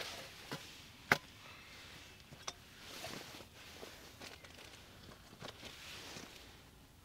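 Rustling of camp gear being handled, with a few sharp clicks and knocks; the loudest knock comes about a second in.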